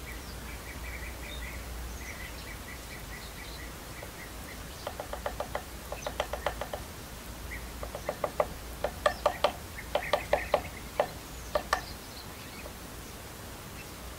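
Wild birds calling: thin high chirps in the first couple of seconds, then from about five seconds in several bursts of short, harsh notes repeated quickly, like a rattling chatter.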